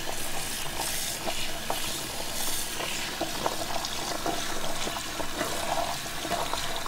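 Bathroom sink tap running, its water splashing over short hair and into the basin as the hair is rinsed under it, in a steady rush with small irregular splashes.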